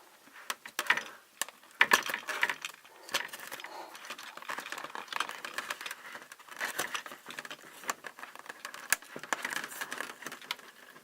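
Barbie doll toy packaging being handled and pulled open by hand: irregular plastic rustling, crinkling and clicks.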